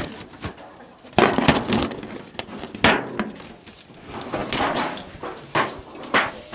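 Thin aluminium foil roasting pans crinkling and clattering as they are pulled apart from a stack and set down on tables: irregular sharp crackles and knocks, the loudest just over a second in and near three seconds.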